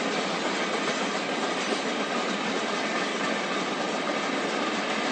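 A train passing, with the steady, unbroken rolling noise of its wheels on the rails.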